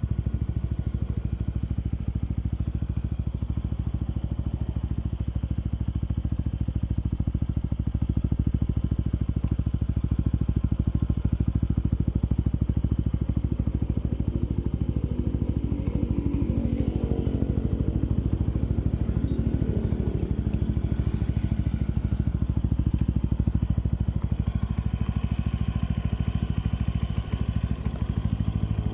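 Motorcycle engine running through a JVT Power Pipe V3 adjustable aftermarket exhaust, a steady exhaust note with fast, even firing pulses. The pitch shifts a little about halfway through, and the note dips briefly near the end.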